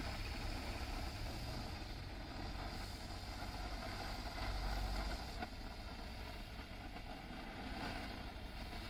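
Firework pencil burning with a steady hiss as it throws out coloured sparks, over a low rumble.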